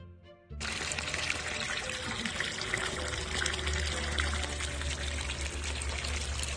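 Water rushing out in a steady stream as a water heater is drained and flushed, starting suddenly about half a second in, with a low hum underneath.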